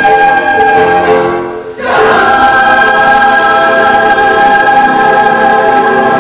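Mixed show choir singing, with a brief cutoff about one and a half seconds in, then a long held chord that closes the song.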